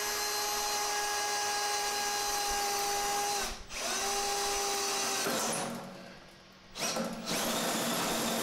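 Power drill spinning a Milwaukee hole saw with a pilot bit through a stainless-steel sink deck, a steady motor whine. It stops for a moment about three and a half seconds in, runs again, winds down a little past five seconds, and starts up once more near seven seconds with a rougher cutting noise.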